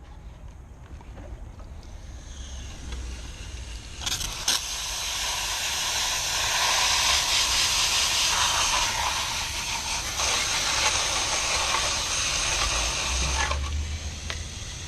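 A strong hissing spray that builds up, runs loud and steady for about ten seconds, then cuts off suddenly: the clogged strainer basket of a chiller's chilled-water pump being sprayed clean of debris.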